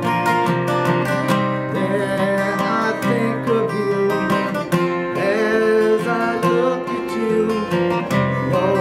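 Acoustic guitar being played, with a man's voice singing over it from about two seconds in.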